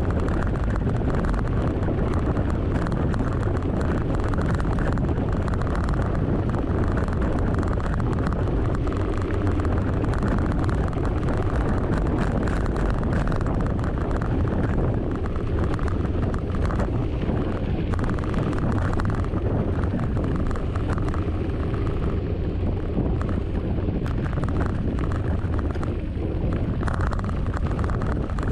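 Wind buffeting the microphone of a camera on a moving mountain bike, a steady low rumble, with the rattle and knocks of the Giant Talon bike over bumps in the trail.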